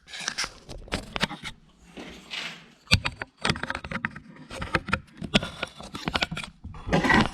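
Irregular clicks, knocks and scrapes of things being handled, with several sharp knocks a second at times and a louder stretch of scraping near the end.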